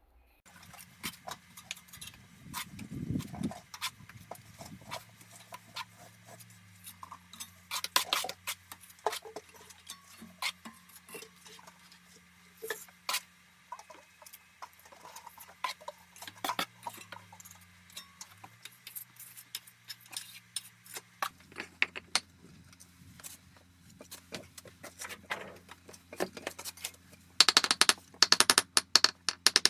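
Irregular clicks, knocks and scrapes of hand work, with a quick run of sharp clinks near the end, over a faint steady hum.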